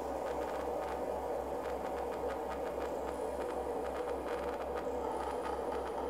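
Synthesised rainforest-storm soundscape played through theatre loudspeakers: a steady wash of mid-pitched noise over a low pulsing hum, with scattered faint ticks and a couple of brief high whistling tones.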